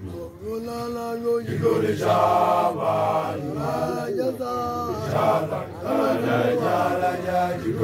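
Young male initiates (makoloane) chanting an initiation song together, several voices holding and sliding between notes in an unbroken chant.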